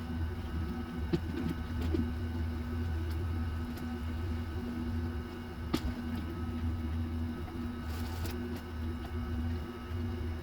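A small motor running with a steady low hum, with a few light clicks and taps over it.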